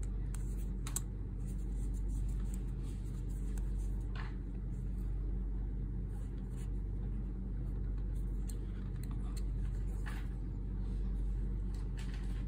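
A steady low hum throughout, with a few faint, short clicks and taps from a precision screwdriver and the small metal parts of a video transmitter being handled as a screw is driven in.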